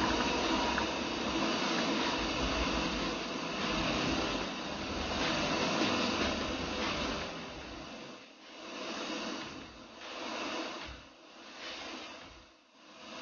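Steady hissing machine noise. From about eight seconds in it comes and goes in swells roughly every second and a half, getting fainter.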